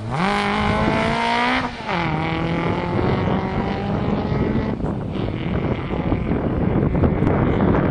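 Rally car engine revving hard under full acceleration, its pitch held high and then dropping sharply just under two seconds in, before pulling on again with tyre and road noise. The sound cuts off suddenly at the end.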